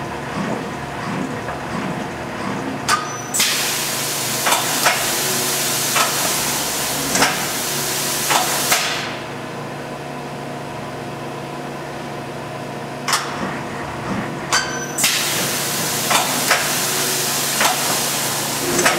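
2000 Agma VMC-84 vertical machining center running its test program: a steady motor hum with about a dozen sharp mechanical clunks from the side-mount tool changer and moving axes. Two long stretches of hiss come in, one from about three seconds in until about nine seconds, the other from about fifteen seconds in until the end.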